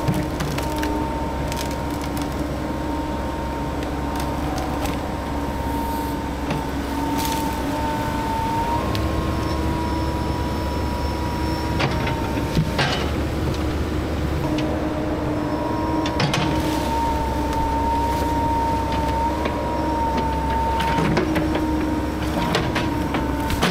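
Cat 308 mini excavator's diesel engine running under load, with a steady hydraulic whine that steps slightly up and down in pitch as the controls are worked. Scattered sharp knocks and cracks of the machine working through stumps and brush.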